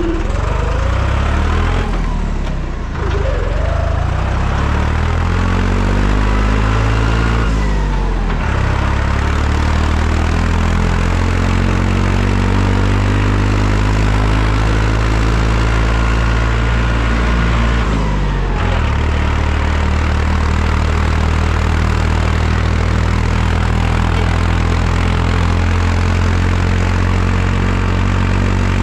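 Deutz-Fahr 55 F tractor's diesel engine pulling under load, its pitch climbing and dropping back at gear changes about 3, 8 and 18 seconds in, then running steadily.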